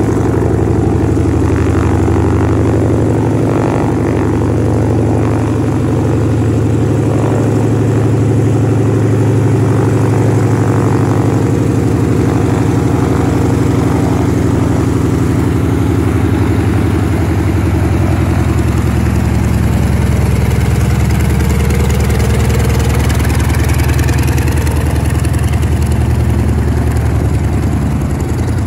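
Douglas SBD Dauntless's Wright R-1820 Cyclone nine-cylinder radial engine running steadily at low power while the plane taxis, with its propeller turning.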